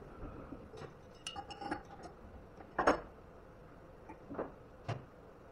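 Light metallic clinks and taps from hand tools being handled at a CNC router, with a sharper knock about three seconds in. The router's spindle is not running.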